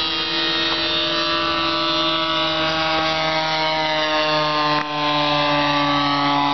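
Engine of a radio-controlled model airplane in flight: a steady, buzzing drone whose pitch sinks slowly as the plane flies past.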